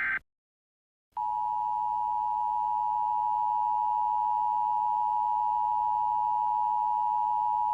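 Emergency Alert System attention signal: a steady two-tone beep of about 853 and 960 Hz, starting about a second in and held unchanged. It is preceded by the last fraction of a second of the SAME header's buzzing data burst, then a short silence. The attention signal announces that an emergency voice message follows.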